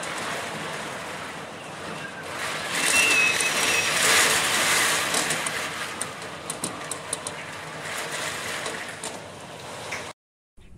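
Typhoon wind gusting hard and rain driving against a sliding glass door, swelling loudest a few seconds in, with a brief high whistle and then a run of rattling clicks. It cuts off abruptly near the end.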